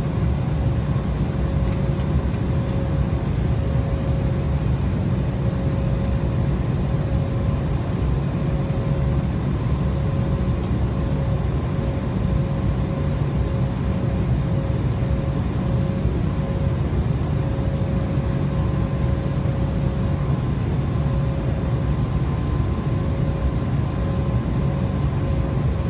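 Cabin noise inside an Embraer 190 airliner: the steady drone of its GE CF34 turbofan engines and airflow, with a constant whine over a deep rumble.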